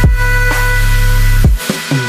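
Electronic background music with a heavy bass line and kick drum hits. The bass drops out about one and a half seconds in.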